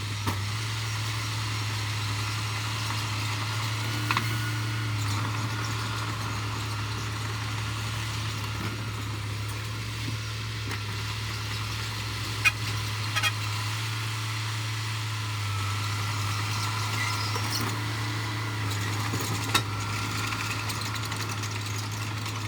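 Heavy construction machine's diesel engine running steadily at an even, low drone, with a few short sharp knocks.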